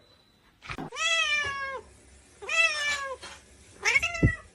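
A cat meowing three times. The first meow is the longest, and each call rises in pitch and falls away at the end.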